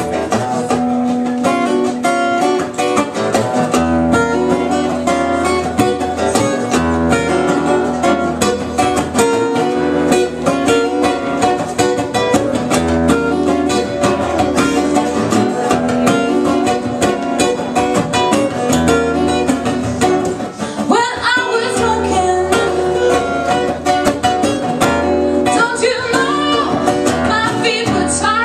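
Two acoustic guitars playing a song live, picked and strummed with a steady beat; a woman's singing voice comes in about three quarters of the way through.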